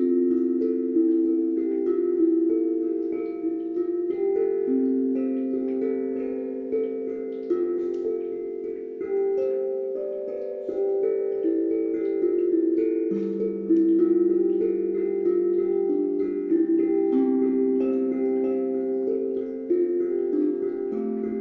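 Calm instrumental music of single ringing notes that sustain and overlap, a new note starting every second or so.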